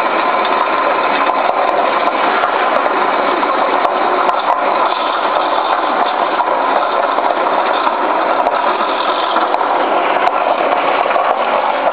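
Electric-motor-driven carrot crusher and screw juicer running steadily, grinding carrots as they are dropped into the hopper, with sharp ticks here and there.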